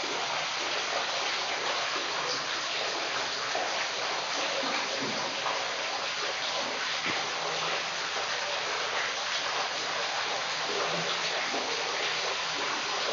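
Water dripping and splashing steadily from icicles into a pool of water, many drops at once making a continuous splashing patter.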